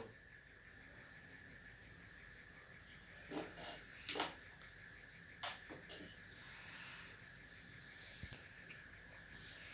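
Cricket chirping steadily: a high, even pulsing trill of about six or seven chirps a second, with a few faint soft knocks in the middle.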